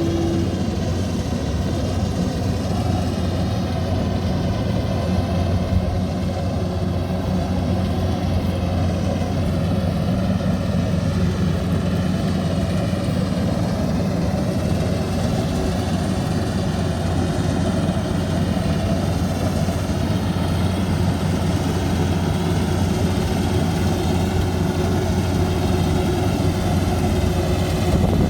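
Engine of a rice combine harvester running steadily at constant speed, a continuous low drone with no change in pitch.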